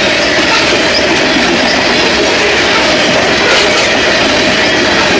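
BNSF freight train's coal cars rolling past at close range: a loud, steady noise of steel wheels running on the rails, with a faint steady squeal from the wheels.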